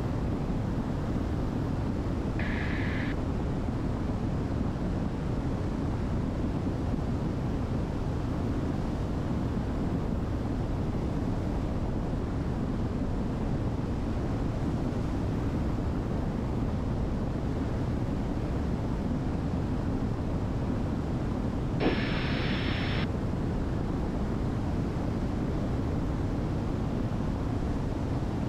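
Diamond DA62's twin engines and airflow making a steady, even drone in cruise flight. Two short high-pitched electronic bursts break through, a faint one about two and a half seconds in and a louder one about 22 seconds in that starts with a click.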